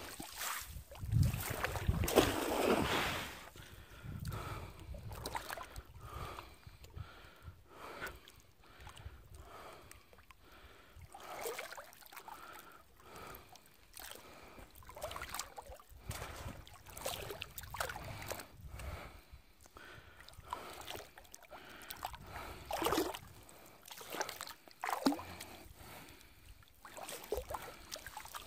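Water sloshing and splashing around a cast net as it is worked and pulled through shallow water by hand, in irregular bursts, loudest about two seconds in.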